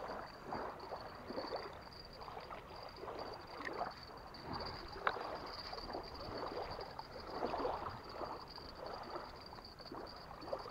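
Small waves lapping and washing on a sandy lake shore, in soft uneven swells, with a thin steady high-pitched whine behind them.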